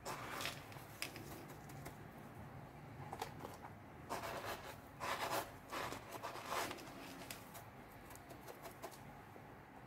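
Coarse salt crunching and rustling in a plastic tub as a hand presses chicken pieces into it, in a few short, faint bursts.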